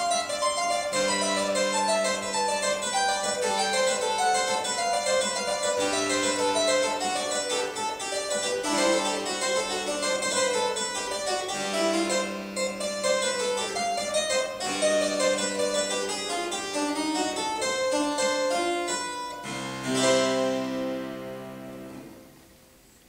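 Harpsichord played solo, a steady stream of quick plucked notes over lower held notes. About twenty seconds in, a final chord is struck, rings, and dies away, closing the piece.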